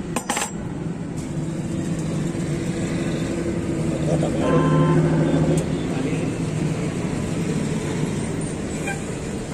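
Roadside traffic: a motor vehicle engine running with a steady low hum that grows loudest around five seconds in, over background voices. A brief sharp clatter comes just at the start.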